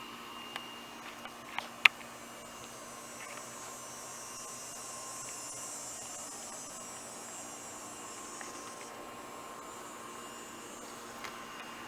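A few sharp clicks, the loudest about two seconds in, from handling the handlebar controls and parts, over a steady hum and hiss.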